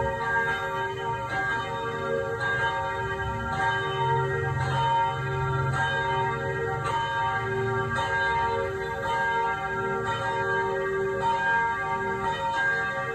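Church bells ringing, a new stroke about once a second, with the tones overlapping and hanging on between strokes.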